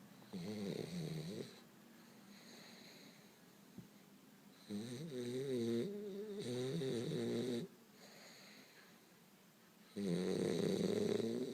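French bulldog snoring: four loud snores with a wavering pitch, the middle two back to back, and softer breaths between them.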